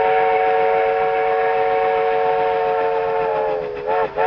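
NSWGR standard five-chime steam locomotive whistle blowing one long, loud chord. Its pitch sags a little as it fades about three and a half seconds in, then comes a short toot, and a second long blast starts right at the end.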